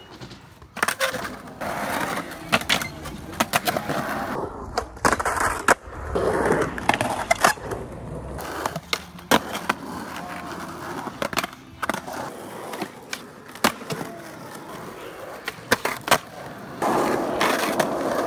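Skateboard wheels rolling over concrete and asphalt, with many sharp clacks of the board being popped and landing on tricks. The rolling grows louder near the end.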